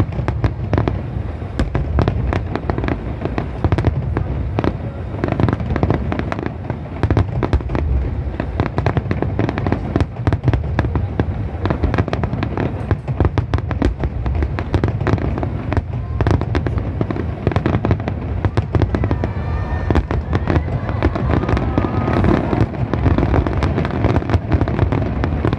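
Dense barrage of aerial firework shells bursting, many sharp bangs and crackles a second following one another without a break.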